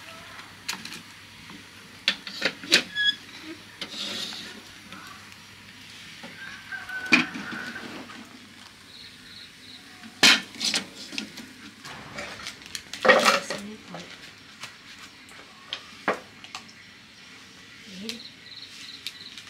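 Scattered clinks, knocks and clatters of cooking utensils being handled at a wood fire: fire tongs, a soot-blackened kettle and a plastic cup. The loudest knocks come about ten and thirteen seconds in.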